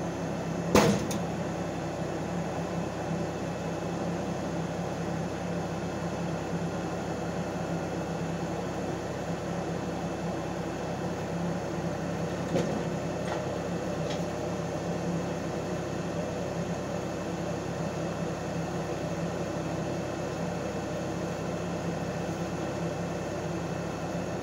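Compact tractor engine running steadily at an even pitch while it pushes a log, with a sharp knock about a second in and two fainter knocks about halfway through.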